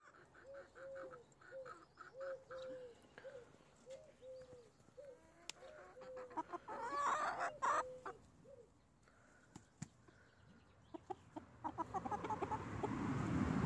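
Chickens clucking, a regular run of short, repeated calls, with a louder, noisier outburst about seven seconds in. Near the end come scattered clicks and a rising rustling noise.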